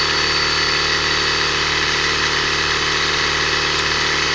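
Small 12-volt vacuum pump running steadily under a PWM motor controller, with a steady high-pitched whine from the PWM switching at about 2 kHz.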